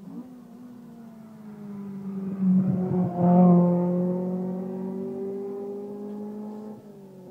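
Rally car engine passing at full throttle: it grows louder, peaks with two brief dips about two and a half to three and a half seconds in, then fades as the car pulls away with the revs climbing steadily.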